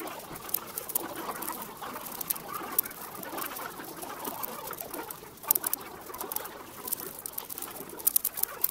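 Rapid plastic clicking and clacking of Rubik's cubes being turned, over a steady background murmur. Dense flurries of clicks come about five and a half seconds in and again near the end.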